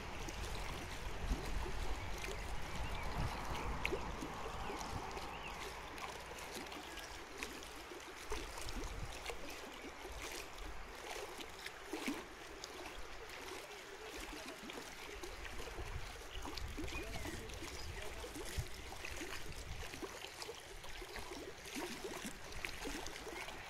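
Small waves lapping at the lake's edge: a steady, irregular gurgling and splashing of water.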